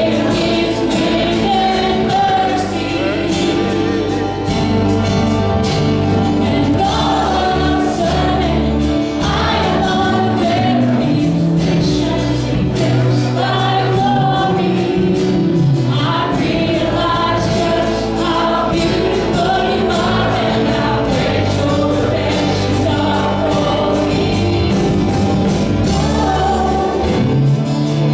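Worship band and singers performing a gospel song, voices singing together over bass and drums with a steady beat.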